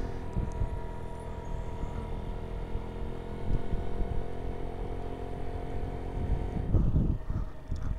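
Small scooter engine running at a steady pitch while it tows a motorcycle whose own engine is dead, over a gusty low rumble. The engine tone fades about seven seconds in.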